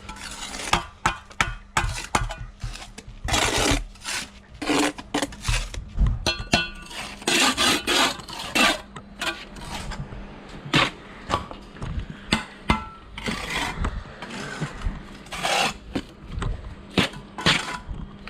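Bricklaying work with a steel trowel on mortar and concrete blocks: an irregular run of scrapes, knocks and taps, some with a short metallic clink.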